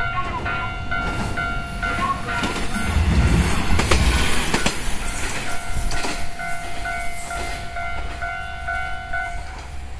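Level-crossing warning bell ringing in an even, rapid pulse while a train passes, its deep rumble swelling to a peak about four seconds in and fading by six seconds. The bell keeps ringing after the train and stops just before the end.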